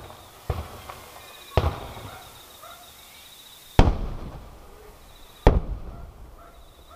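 Aerial firework shells bursting: four loud booms, the first about half a second in and the last about five and a half seconds in, with a smaller pop between the first two. Each boom dies away over a second or so.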